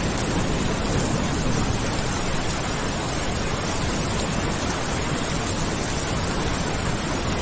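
Steady heavy rain: a dense, even hiss with no separate drops or thunderclaps standing out.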